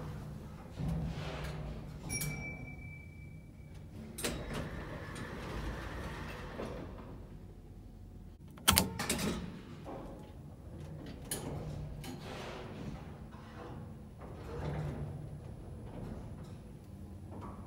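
An old lift's stainless steel car doors sliding open and then closing again, over a low steady hum, with a short beep about two seconds in and several clicks and knocks, the loudest a sharp bang about halfway through.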